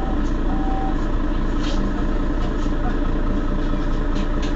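Mercedes-Benz Citaro facelift city bus engine idling steadily while the bus stands still.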